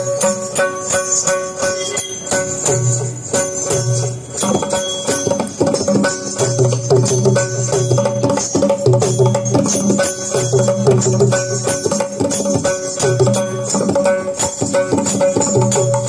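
Instrumental music with a steady, repeating percussion beat, jingles and sustained melodic notes: the instrumental lead-in of the song the child in Theyyam costume dances to.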